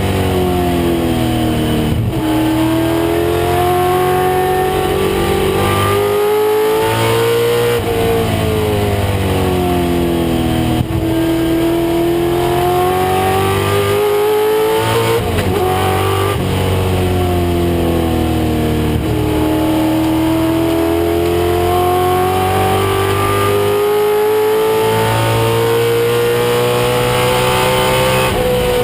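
1996 Ford Mustang race car's engine under racing load, its pitch climbing and falling in long smooth sweeps several times as it accelerates and slows through the lap.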